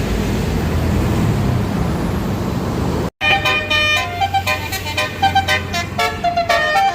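Bus engine and road noise. A sudden cut about three seconds in gives way to a basuri multi-tone bus horn playing a quick tune of high, stepping notes.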